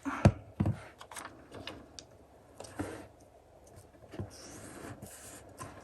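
Paper and craft supplies handled on a tabletop while gluing a journal page: scattered small taps, clicks and paper rustles, with a sharper knock about a quarter of a second in.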